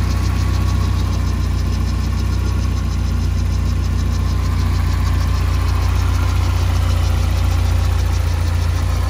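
1987 Alfa Romeo Spider's twin-cam four-cylinder engine idling steadily while it warms up after a cold start, heard close over the open engine bay. A fast, even light ticking sits over the low hum.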